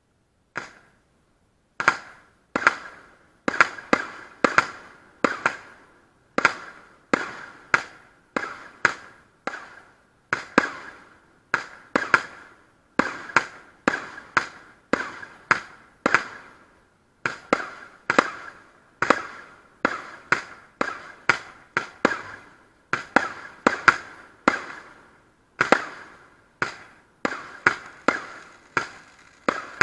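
F2 consumer fireworks firing a steady run of sharp bangs, about one to two a second, each trailing off in a short echo. The bangs start just after a brief silence.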